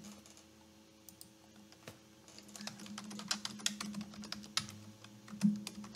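Typing on a computer keyboard: a few lone key clicks, then a quick, irregular run of keystrokes from about two seconds in. A faint steady hum sits underneath.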